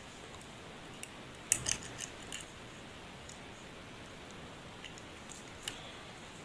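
Faint clicks and scrapes of a wire's spade connector being fitted onto a terminal of a plastic automotive relay: a short cluster of clicks about one and a half to two and a half seconds in, and one more click near the end.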